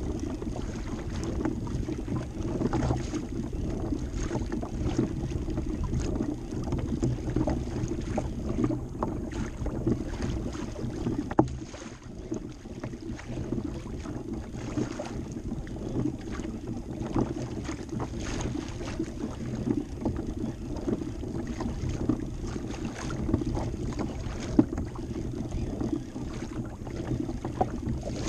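Water sloshing and lapping against a fishing kayak's hull as it moves, with wind on the microphone and a few light knocks.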